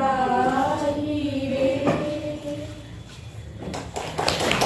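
A small group of women singing together, holding a long note that fades out a little past halfway. Clapping starts near the end.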